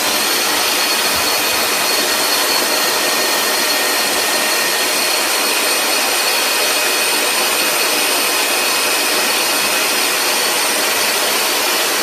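Bare vacuum cleaner motor, a brushed universal motor, running on mains power: a steady high whine over an even rush of air.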